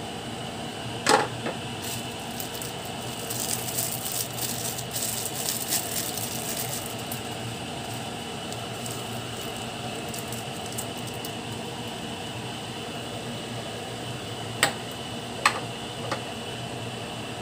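Pork intestines cooking in a nonstick frying pan over a steady hum, with faint crackling sizzle for a few seconds after the start. A spatula knocks against the pan about a second in, and three short knocks come near the end.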